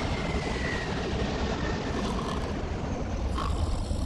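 Airliner jet engines running in a steady, loud rush of noise as the plane starts its takeoff.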